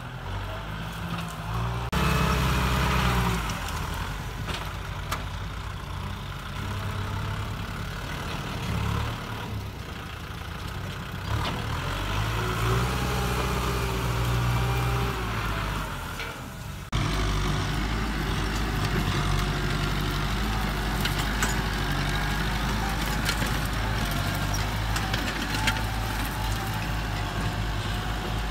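Kubota M6040 tractor's diesel engine running under load while it pulls a disc harrow, its note rising and falling a little. The level jumps suddenly about two seconds in and again past the middle.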